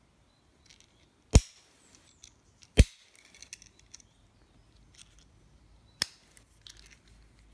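Wenger Blackout 63ST Swiss Army knife's blade and tools snapping open and shut on their springs: three sharp clicks, about a second and a half in, near three seconds and about six seconds in, with faint handling rustle between.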